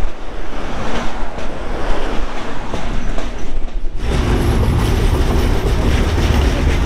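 Passenger train running at speed over a bridge: a steady rushing rumble of wheels and carriage, heard from an open carriage doorway. About four seconds in, the sound changes abruptly to a heavier, steadier low rumble.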